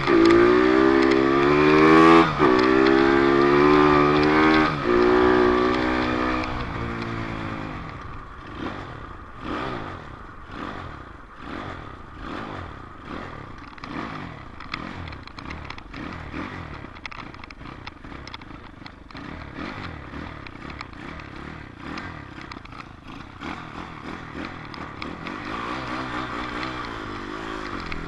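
Dirt bike engine accelerating hard through the gears, its pitch climbing and dropping back at each shift, then fading away. A quieter, uneven engine sound with rattling follows, and the engine pitch rises again near the end.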